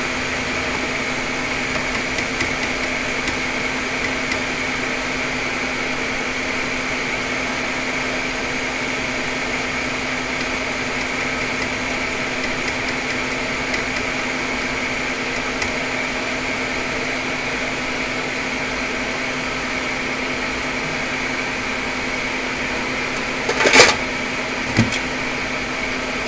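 Steady electric hum of a small bench fan or blower motor, unchanging throughout. Near the end comes one sharp clack, followed about a second later by a lighter knock.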